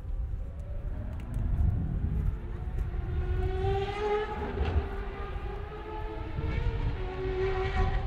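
A Ferrari race car's engine heard at some distance, its note swelling twice, about halfway through and again near the end, over a steady low rumble.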